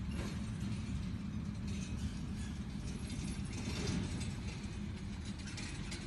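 Expo dry-erase marker scratching on a whiteboard in short, uneven strokes as small figures are drawn, over a steady low background rumble.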